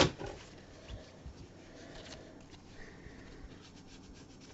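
Trading cards being sorted by hand and set down onto piles on a table: one sharp tap at the start, then faint rubbing and light clicks of the cards.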